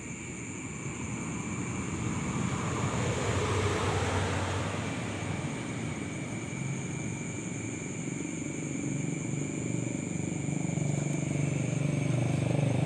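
A motor vehicle passing by: its engine noise swells to a peak about four seconds in and fades with a falling pitch. A low engine rumble then builds again toward the end, and a steady high-pitched whine runs underneath throughout.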